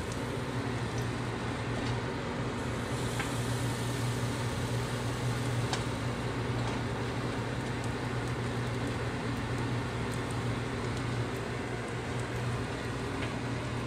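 Microwave oven running with a steady electrical hum while cooking bacon, with a few faint pops from the bacon inside.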